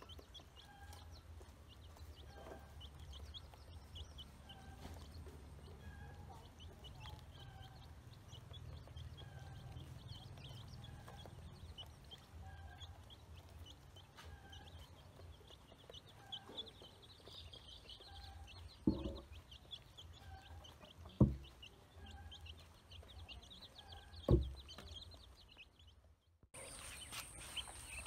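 Ducklings peeping as they feed, over a soft call that repeats about once a second. Three sharp thumps in the second half are the loudest sounds.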